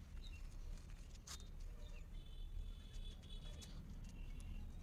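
Quiet background: a faint low hum with a soft click or two and a few faint high chirps. The microfibre cloth wiping the painted tank makes no clear sound of its own.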